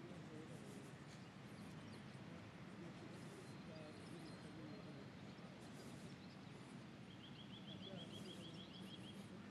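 Faint park ambience: small birds chirping now and then, with a rapid trill of about seven notes a second near the end, over a low steady background hum.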